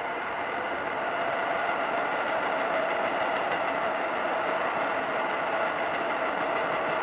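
JR long-rail transport diesel railcar train passing at slow speed, its engine giving a steady truck-like growl with a whine over the rumble of the wheels. It grows louder during the first second, then holds steady.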